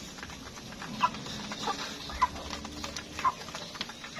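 Chickens clucking: a few short, separate clucks spaced about half a second to a second apart.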